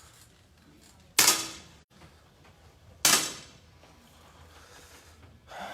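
Two 10 m air pistol shots about two seconds apart, each a sharp pop with a short ringing tail.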